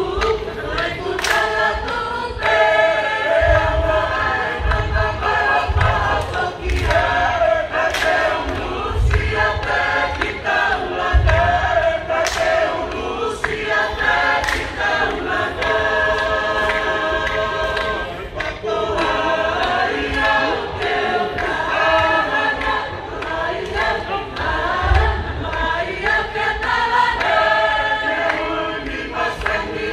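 Tongan lakalaka sung by a mixed choir of many voices in part harmony, in long phrases, with a few sharp hits now and then.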